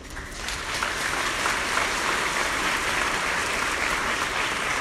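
Audience applauding, building up about half a second in and then holding steady.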